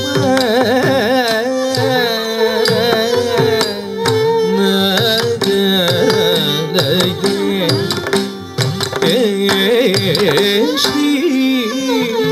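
Carnatic classical song: a voice sings winding, heavily ornamented phrases over a steady drone, with hand-drum strokes keeping time.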